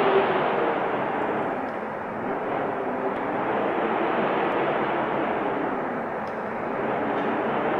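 Wind blowing steadily, a rushing noise that eases and swells slowly in gusts.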